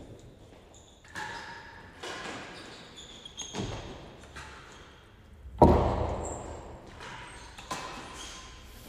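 Real tennis rally: the hard ball is struck by rackets and rebounds off the court's walls and floor. This gives a series of sharp knocks that echo through the hall, the loudest a little past halfway.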